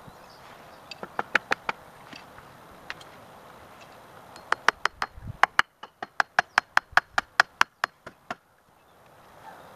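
Hammer driving nails into a wooden bike-rack slat: a few quick taps about a second in, then a steady run of blows, about four or five a second, for several seconds.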